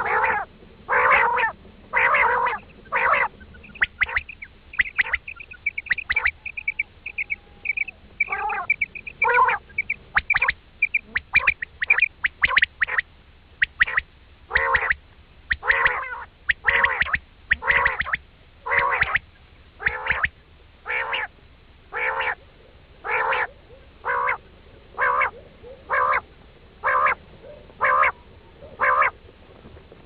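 Recorded common quail calls of the kind played as a lure for quail hunting: short, harsh, quacking calls repeating about once a second. Between about 4 and 11 seconds in, a run of rapid high, thin notes is heard as well.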